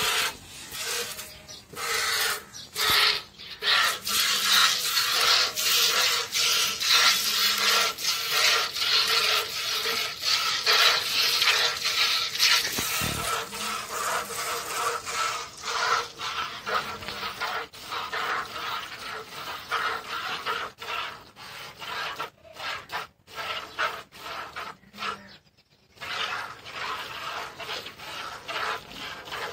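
Cow being milked by hand into a plastic bucket: rhythmic hissing squirts of milk striking the bucket, with a brief pause near the end.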